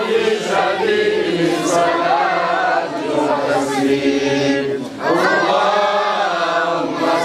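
Men's voices chanting together, a devotional Islamic chant sung in a group, with a brief break for breath about five seconds in.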